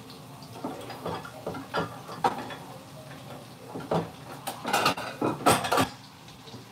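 Dishes clinking and knocking against each other and the shelf as they are taken down from a kitchen cabinet: a scatter of short clinks, busier and louder about two-thirds of the way in.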